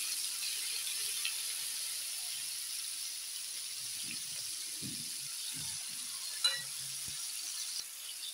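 Marinated liver pieces sizzling in a little oil on a hot flat tawa griddle, a steady hiss with faint pops, and one sharp tap about six and a half seconds in.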